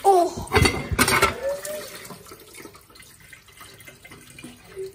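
Water from a tap splashing onto a plate in a stainless-steel sink, loudest in the first second and a half, then a quieter trickle.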